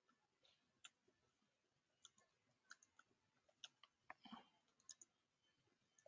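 Faint, irregular clicking of a computer keyboard being typed on, keystrokes coming in short runs, with one slightly longer and fuller click about four seconds in.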